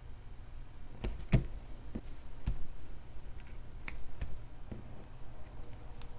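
Cardstock being pressed and handled on a tabletop: a series of about seven light taps and clicks of card and hands against the table, the loudest about a second and a half in, over a low steady hum.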